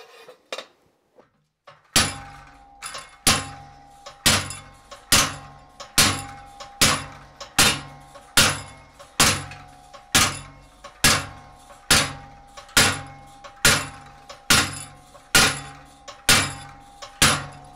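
Treadle hammer striking a handled cold chisel to cut sheet steel cold, starting about two seconds in and keeping up a steady beat a little faster than one blow a second. Each blow is a sharp metallic strike, and a steady ringing tone from the struck steel carries on between blows.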